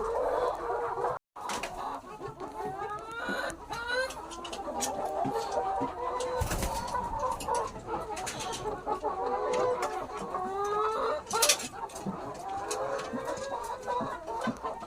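A flock of young hens (19-week-old pullets just coming into lay) clucking and calling, many short overlapping calls, some rising, with scattered sharp clicks. The sound cuts out completely for a moment about a second in.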